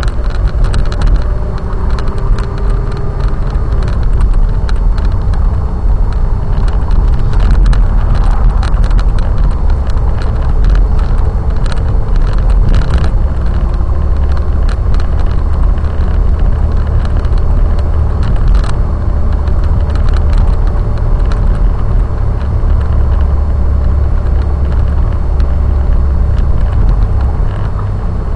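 A car driving on city streets, heard from inside the cabin through a dashcam's built-in microphone: a steady low engine and road rumble, with scattered small clicks and rattles.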